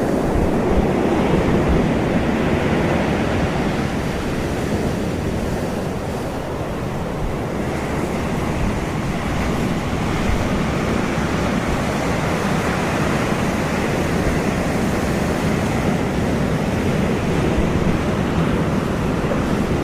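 Steady rushing wash of ocean surf, swelling and easing slowly.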